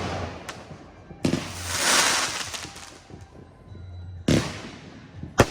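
Fireworks going off: a sharp bang about a second in, followed by a hiss that swells and fades, then two more sharp bangs near the end.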